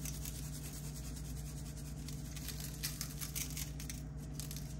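Shaker jar of dried seasoning being shaken over a salad: soft scratchy rattles of the granules, several in quick succession in the second half, over a steady low hum.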